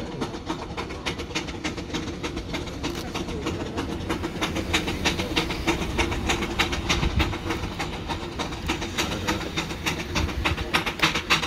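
Aveling & Porter steam rollers chuffing as they climb a steep hill under load: a fast, even beat of steam exhaust from the chimneys, growing louder near the end as they approach.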